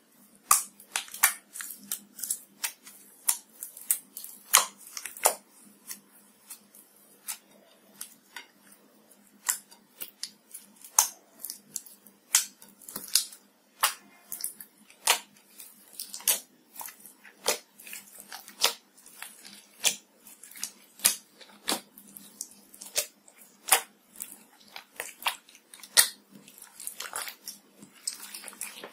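Hands squishing and kneading a large mass of mixed slime studded with foam beads and glitter, giving irregular sharp wet pops and clicks, one to several a second.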